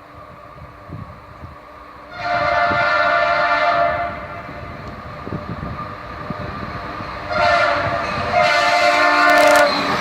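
Locomotive air horn sounding three blasts as a train approaches: a long one about two seconds in, then a shorter one and another long one near the end, over the low rumble of the train.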